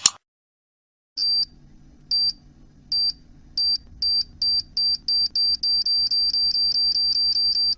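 Electronic beeps over a low hum that speed up steadily, from single beeps nearly a second apart to about four a second: a time-bomb countdown sound effect. A brief sharp burst comes right at the start.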